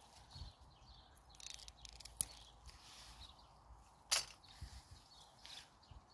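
Pea vines rustling as pea pods are picked by hand and dropped into a stainless steel colander, with two sharp clicks about two and four seconds in, the second the loudest.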